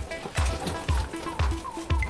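Background music with a steady kick-drum beat, about two beats a second, under held synth notes.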